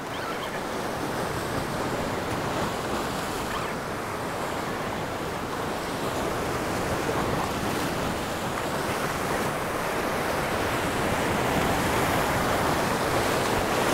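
Ocean surf washing and breaking over a rocky reef shore, a steady rushing that grows slowly louder toward the end.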